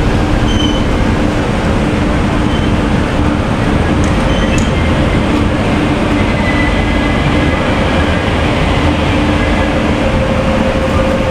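Double-decker express train running on the rails: a steady rumble with a few faint held whining tones over it.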